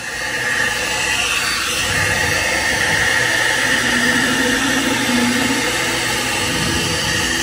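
Hot-air brush (hair-dryer brush) running, its motor and fan blowing a steady rush of air with a faint motor whine as it is drawn through hair.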